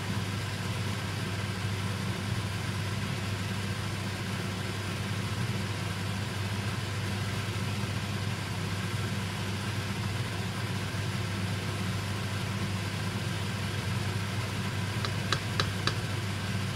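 Steady low machine hum, with about four light, quick taps near the end as the ladle knocks against the stainless steel soup pot.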